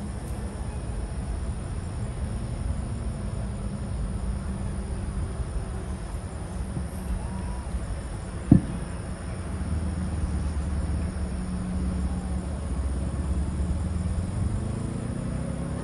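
Crickets chirping over a steady low rumble, with one sharp thump about halfway through. A rising tone begins near the end.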